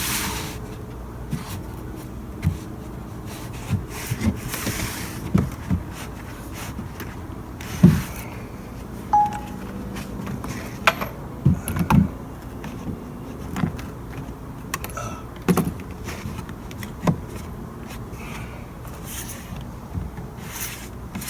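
Wooden knocks and thumps at irregular intervals, about a dozen, as loose new deck boards are shifted and pushed into even spacing.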